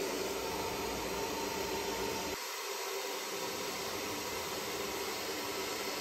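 Somoya handheld hair dryer running: a steady rush of air with a motor whine. Its low rumble drops away about two and a half seconds in while the rush carries on.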